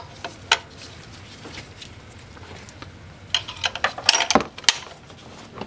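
Metal tool clinking and clicking against the engine as a wrench levers the accessory-belt tensioner to free the belt: a single click about half a second in, then a scattered run of clinks from about three and a half to five seconds.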